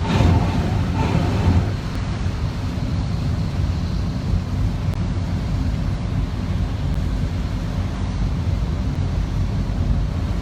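Steady road and engine noise of a moving car heard from inside the cabin, a low rumble with an even hiss over it.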